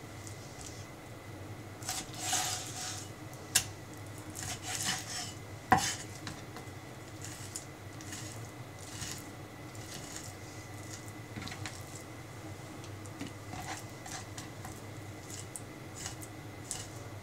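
Chef's knife cutting raw chicken thigh on a wooden cutting board: soft scraping strokes of the blade through the meat, with two sharp knocks of the knife on the board in the first six seconds, then lighter cutting over a faint steady hum.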